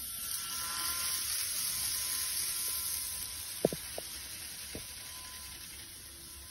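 Model 225 series 100-subseries eight-car train running on its track: a high whirring hiss swells over the first couple of seconds and then fades. A few sharp clicks follow, about three and a half to five seconds in.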